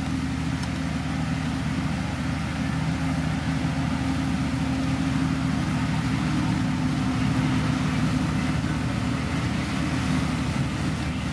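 Diesel engine of heavy road-building machinery running steadily, a constant low engine note with mechanical noise over it.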